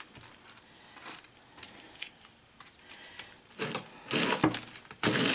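A chef's knife slicing through a half head of green cabbage on a cutting board. Faint handling clicks come first, then loud, crisp crunching cuts start about three and a half seconds in.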